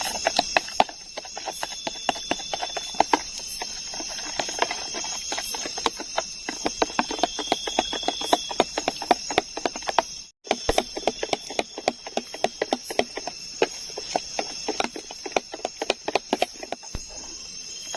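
Steady high-pitched chorus of night insects such as crickets, with a longer trilling call now and then, over dense irregular crackling clicks. The sound cuts out briefly about ten seconds in.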